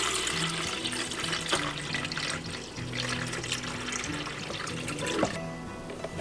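Music with a repeating bass line, over a steady rushing, hissing noise like running water; the hiss cuts out a little past five seconds in while the music carries on.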